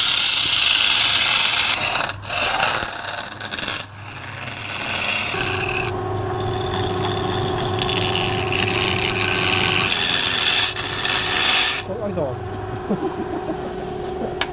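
A lathe gouge cutting a spinning wooden vase makes a continuous scraping hiss of wood being shaved. It breaks off briefly a couple of times and stops near the end, with a steady hum from the lathe underneath in the middle.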